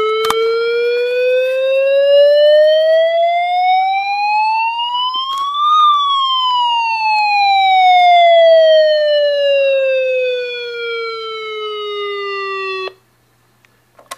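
Electronic siren alert tone from a weather radio's speaker: a single wail that rises steadily for about six seconds, then falls for about seven and cuts off abruptly near the end.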